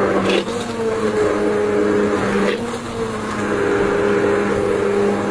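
Hand-held immersion blender running steadily as it purées a thick sauce, a motor hum with a whirring hiss. Its pitch shifts slightly a couple of times as the load changes.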